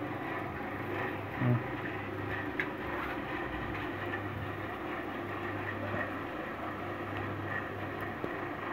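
Steady low background hum and rumble, with one short thump about one and a half seconds in.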